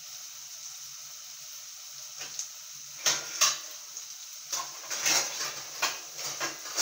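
Chopped onions sizzling in hot oil in a non-stick kadhai, a steady frying hiss. About three seconds in, a run of sharp knocks and scrapes begins, a utensil against the pan.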